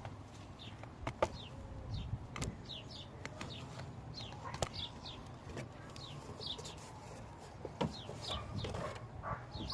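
Small birds chirping over and over, short high chirps that drop in pitch, two or three a second. Several sharp clicks and knocks stand out above them.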